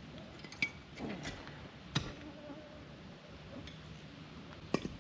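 A few sharp metallic clinks and knocks, four of them spread out, from hand work on the sawmill as it is being raised, with a brief falling squeak about a second in over a faint low steady hum.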